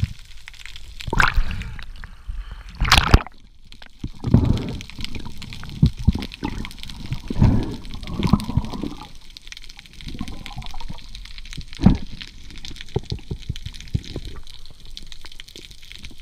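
Water rushing and gurgling around an underwater camera housing in irregular surges as the diver moves, with a sharp knock about three seconds in and a few smaller clicks.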